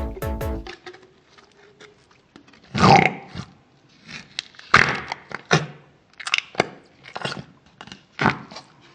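Fart putty being squeezed and pushed in its tub, giving a series of short, wet fart-like squelches, the first and loudest about three seconds in. A brief musical jingle ends just under a second in.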